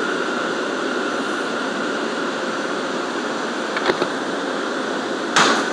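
R179 subway car running along elevated track, heard from inside the rear car: a steady rumble and hiss of wheels and ventilation, with a faint whine that fades away. A couple of light clicks come about four seconds in, and a sharp clack near the end.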